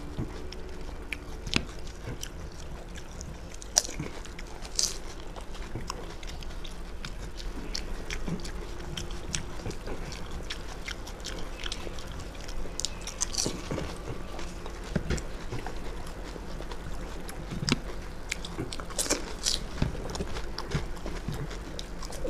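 Two people eating fuchka (pani puri) at speed: crisp hollow fried puri shells filled with sour water crunching and being chewed, with irregular sharp crackles and clicks throughout.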